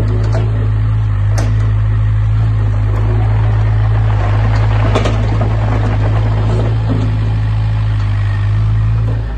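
Doosan DX55 mini excavator's diesel engine running steadily under hydraulic load while the machine slews and works its boom and arm, with scattered short clicks and knocks from the moving machine.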